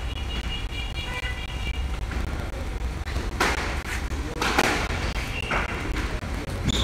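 Squash rally: the ball is struck by rackets and hits the court walls with sharp smacks about once a second from midway on. There are short high squeaks in the first two seconds, over a steady low rumble.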